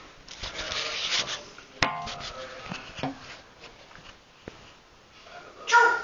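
An African grey parrot sneezing: a sharp, sudden sneeze about two seconds in and a louder, short one near the end. There is a stretch of rustling hiss in the first second or so.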